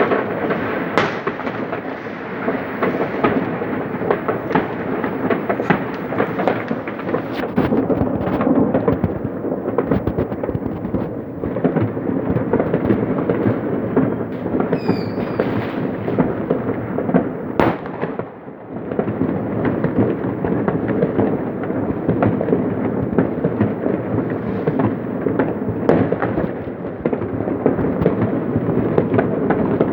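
Many New Year fireworks going off at once: a dense, continuous crackle of bangs and pops over a rumble, easing briefly about two-thirds of the way through before picking up again.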